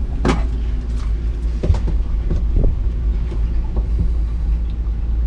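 A steady low hum, with a few short knocks and taps as a cordless drill is handled and set against a fibreglass bulkhead. The drill is not yet running.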